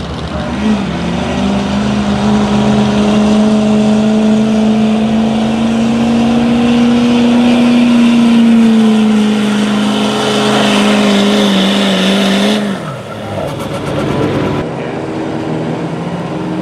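Ford F-250 Super Duty pickup's V8 engine pulling under full load at high, steady revs as it drags a weight-transfer sled. The revs sag slightly and then drop away about thirteen seconds in as the pull ends. Near the end, another pickup's engine runs at lower revs.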